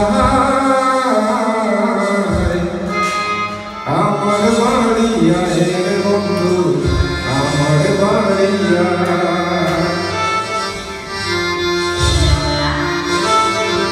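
Live Bangla fusion song: a male vocalist singing into a microphone over a Roland XP-80 keyboard and electronic drum pads.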